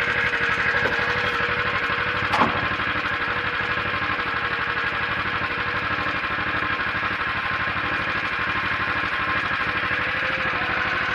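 Small air-cooled engine of a Motor Sich walk-behind tractor running steadily at idle, with an even pulsing beat. A single short knock sounds about two and a half seconds in.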